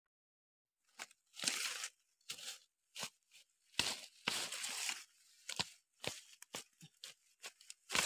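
Hands and a wooden stick scraping and loosening dry forest soil and leaf litter, digging out a root. The sound is an irregular run of short scraping, crunching strokes that starts about a second in.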